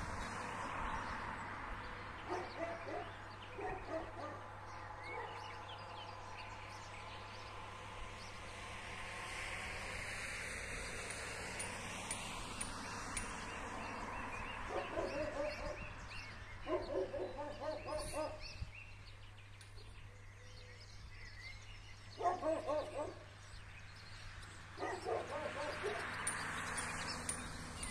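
A dog barking in several short bouts of quick barks, spread through the stretch, over a steady outdoor background.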